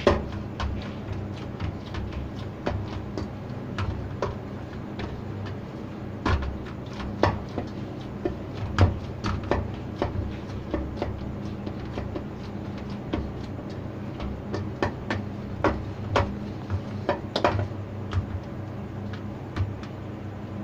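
Flour dough being kneaded by hand in a stainless steel bowl: irregular knocks and clicks as the hand and dough press and slap against the metal, over a steady low hum.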